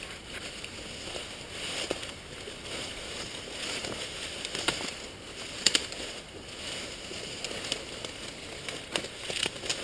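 Leaves, weeds and brush rustling and swishing as people walk through dense undergrowth, with several sharp snaps of twigs and stems breaking.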